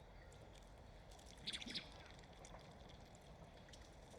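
Faint water ambience, with a brief cluster of drips about a second and a half in and a softer one a second later.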